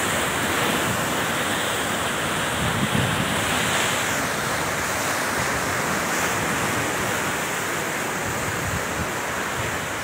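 Rough sea surf breaking and churning against rocks, a steady roar of water, with wind buffeting the microphone.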